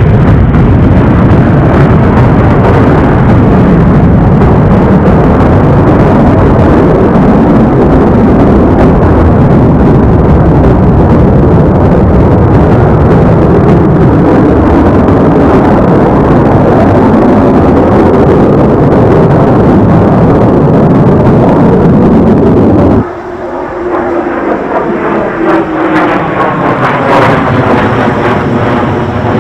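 McDonnell Douglas F-15 Eagle's twin Pratt & Whitney F100 turbofans at full afterburner on takeoff and climb-out: a loud, steady jet rumble. About 23 seconds in it drops abruptly to a quieter jet sound whose pitch slides down as the aircraft passes.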